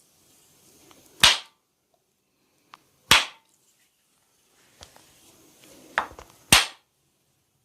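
Three loud, sharp hand slaps of a barber's massage, roughly two seconds apart, with a few fainter clicks and a soft rustle of hands on skin between them.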